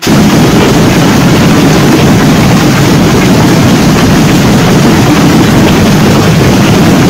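Heavy rain mixed with hail pelting down in strong wind, a loud steady rush, with wind buffeting the microphone.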